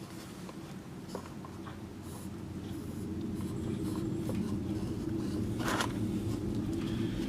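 Paper towel rubbing against a Technics 1200 turntable spindle, wiping off a ring of dirt: soft scratchy rustles and small clicks, over a low steady rumble that grows louder.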